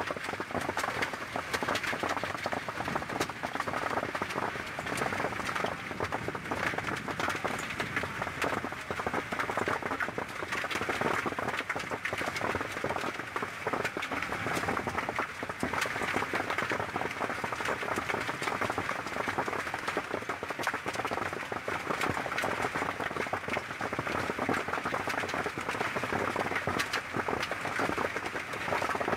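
Heavy hail mixed with rain falling, a dense, steady patter of countless small impacts on the ground and nearby surfaces.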